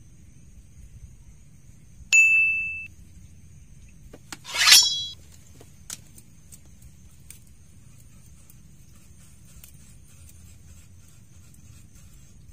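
Bite bell on a fishing rod ringing twice as a fish takes the bait: a single clear ding about two seconds in that fades over most of a second, then a louder jangling ring about two seconds later.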